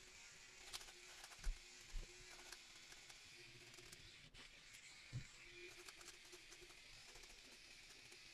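Near silence, with faint small clicks from beard trimming at the chin, a weak on-and-off hum and a few soft low thumps.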